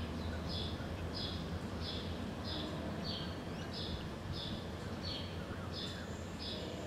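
Approaching MBTA commuter train's diesel locomotive giving a low steady rumble. Over it, a short high chirp repeats evenly about every two-thirds of a second.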